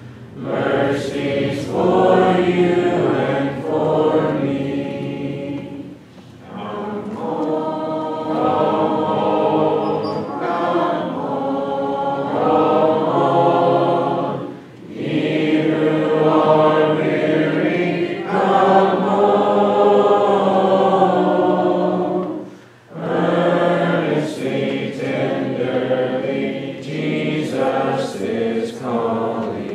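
Church congregation singing a hymn a cappella, many voices in harmony, in long phrases with brief breaths between them.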